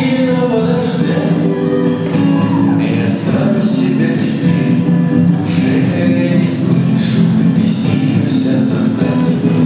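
A song with singing over a full instrumental backing and a steady beat, played loud and continuously as dance music.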